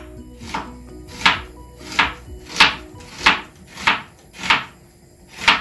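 Background music: a regular swishing beat, about three strokes every two seconds, over faint held notes.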